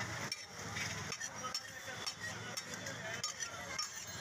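A metal cooking utensil stirring and scraping in a pan of frying food, with irregular clinks over a steady sizzling hiss.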